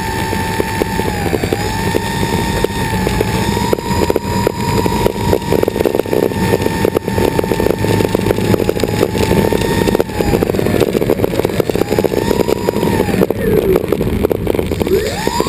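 Twin engines of a radio-controlled model airplane running steadily, heard close up from on board as the plane taxis on pavement. The pitch dips and rises again late on, then swings up and down sharply at the end as the throttle is worked.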